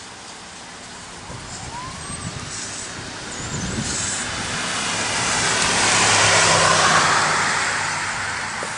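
A vehicle passing by, its noise swelling to its loudest about six to seven seconds in and then fading away.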